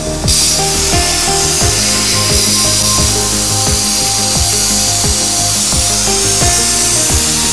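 Plasma arc on a CNC pipe-cutting machine cutting a hole in a round steel pipe: a loud, steady hiss that jumps up as the cut gets under way just after the start, over background music.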